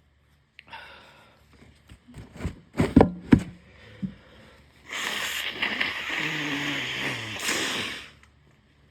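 A few sharp, loud bursts of breath through a congested nose, then one long nose blow into a tissue lasting about three seconds, with a low wet honk falling in pitch near its end; the blocked sinuses do not clear.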